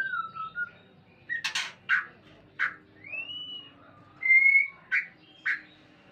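A breeding pair of white-rumped shamas calling: clear whistled notes, some gliding up or down in pitch, between short, harsh chattering calls about a second and a half, two, two and a half, five and five and a half seconds in.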